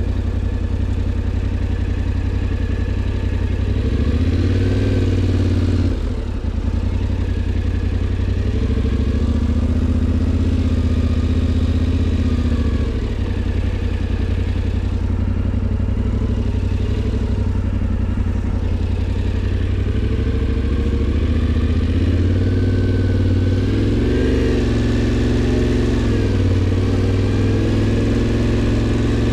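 Yamaha Tenere 700's parallel-twin engine running under way at a steady road speed, its pitch rising and falling gently a few times as the throttle is opened and eased.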